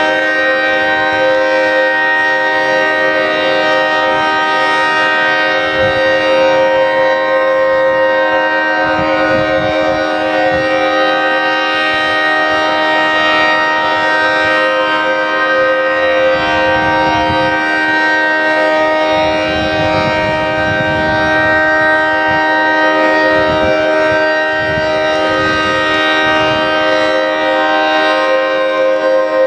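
Federal Signal 3T22 three-tone outdoor warning siren sounding its steady alert signal: one held chord from its 10/12-port rotors that does not rise or fall.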